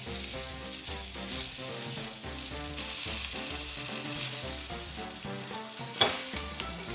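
Skin-on potato chunks frying in olive oil in a hot black frying pan: a steady sizzle, with a spatula turning the pieces. One short, louder knock near the end.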